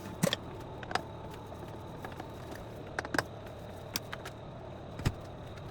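Scattered sharp clicks and light knocks as an induction hob's coil plates are worked loose by hand: about six separate clicks from the plug connectors and fixings, over a faint steady hum.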